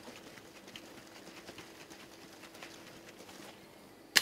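Two-piece Boston cocktail shaker shaken hard without ice (a dry shake of liquid and egg white), giving faint, uneven sloshing and knocks. Near the end a single sharp crack as the tin is knocked loose to open the shaker.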